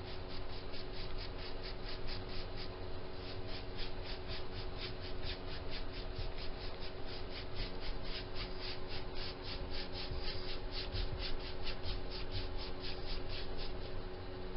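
Paintbrush bristles scrubbing quickly back and forth across an oak board, dry-brushing a thin coat of gray chalk paint into the grain: an even rasp of about five strokes a second over a steady low hum.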